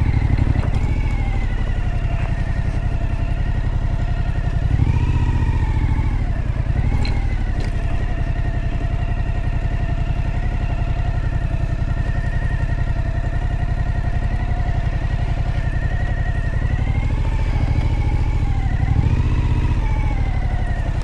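Suzuki V-Strom motorcycle engine running at low revs, mostly steady, with the pitch rising and falling briefly about five seconds in and again near the end as the throttle is eased on and off.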